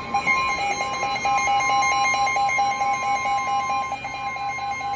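Weather radio alert tones: the steady NOAA Weather Radio warning alarm tone, about 1 kHz, with a second, rapidly pulsing alarm beep under it. The steady tone drops out about four seconds in, leaving the pulsing beep. The tones herald a severe thunderstorm warning about to be read out.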